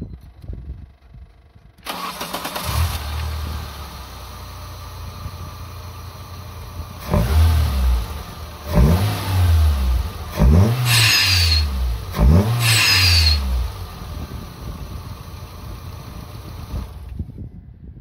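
Nissan Serena PC24 engine, breathing through an open-element APEXi air filter, starting about two seconds in and settling to a steady idle. It is then blipped four times in a row, each rev rising and falling within about a second and a half, with a short falling high whistle on the second and fourth. It idles again and is switched off near the end.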